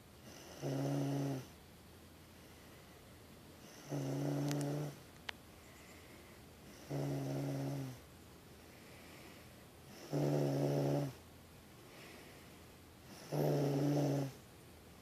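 Snoring during sleep: five steady-pitched snores, each about a second long, one about every three seconds.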